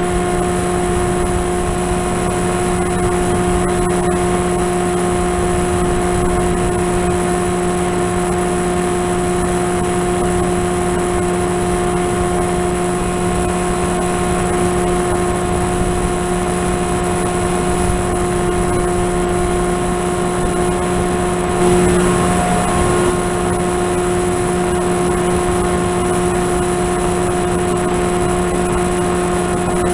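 An FPV model aircraft's motor and propeller running at a steady pitch under a rush of wind noise, with a brief surge about two-thirds of the way through.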